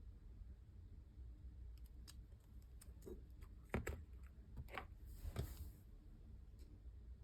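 Quiet handling noises of slime being worked by hand: a few faint clicks and taps in the middle, one sharper than the rest, and a brief soft crinkly rustle.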